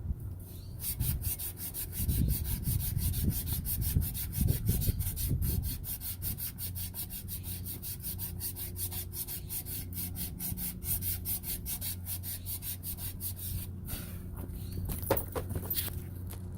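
Copper water pipe being sanded by hand: rapid, even back-and-forth strokes of an abrasive, about five a second, cleaning the pipe before it is cut. The strokes stop near the end, followed by a few light knocks.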